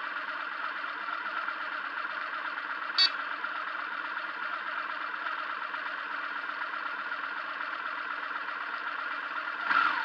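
Engine of a stopped vehicle idling with a steady hum. A sharp click about three seconds in, and a brief louder noise with a falling tone just before the end.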